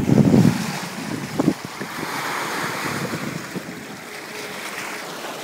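Sea water surging and splashing, with wind buffeting the microphone. Loud rushes in the first half-second and one more about a second and a half in give way to a steady hiss that slowly fades.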